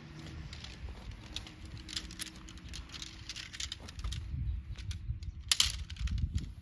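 Tent poles being handled and unbundled: a run of light clicks and rattles, with one sharper clack about a second before the end, over a low rumble.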